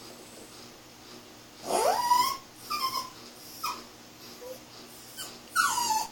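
Chiweenie puppy whining: a rising whine about two seconds in, then a few short, falling whimpers, and a louder falling whine near the end.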